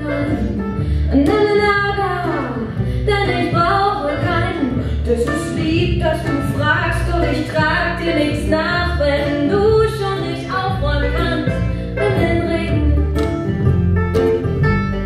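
A woman singing a song over a plucked upright double bass and acoustic guitar.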